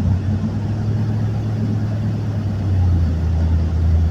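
Steady engine drone and road noise of a moving vehicle, heard from inside. About two-thirds of the way through, the engine note drops a little in pitch and gets slightly louder.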